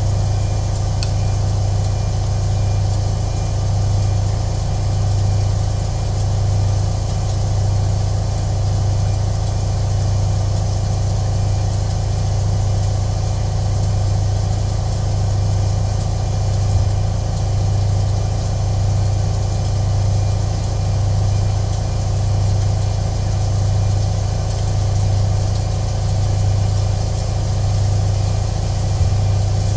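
Washing machine running: a steady low mechanical hum that swells and fades at a slow, even pulse, with a faint high hiss over it.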